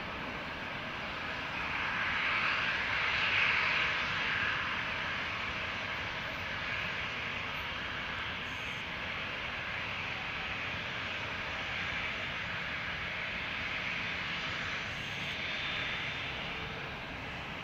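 Boeing 787-8 jet engines at takeoff thrust, a steady rushing roar as the airliner rolls, lifts off and climbs away. It is loudest about two to four seconds in.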